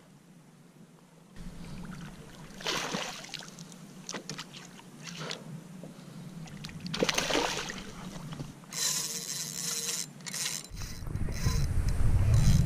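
Water splashing and sloshing alongside a kayak as a hooked cobia is fought at the surface, in scattered short bursts. A brief high hiss comes about two-thirds of the way through, and a low rumble takes over in the last two seconds.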